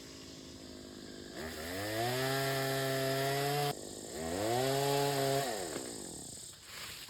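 Gas chainsaw revved up to full throttle twice, the pitch climbing fast and holding high each time; the first burst drops off abruptly, the second winds down.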